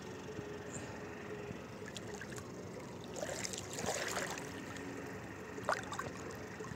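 Sea water lapping and splashing close to the microphone, with a louder run of splashing about three to four seconds in and a short sharp splash near the end.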